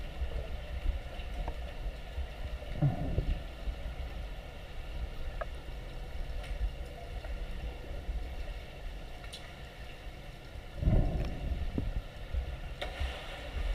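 Underwater ambience of a swimming pool picked up by a submerged camera: a steady low rumble and hiss of water, with two short swells of gurgling water about three seconds in and again near eleven seconds.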